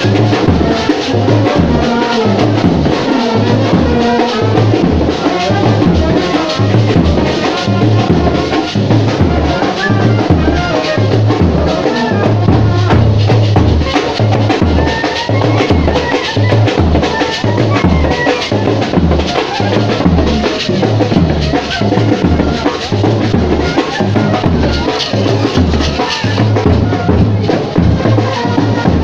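Music with a steady, regular drum beat and a busy melody over it.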